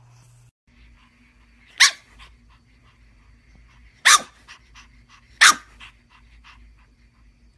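Pug puppy barking: three sharp barks, the first about two seconds in and the last two close together, with softer short sounds between them.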